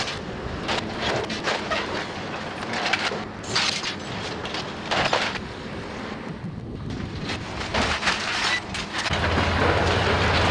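Steel lattice towers being cut and pulled apart by an excavator's hydraulic demolition shear: repeated clanks, cracks and crashes of steel members breaking and falling. A steady low machine drone comes in near the end.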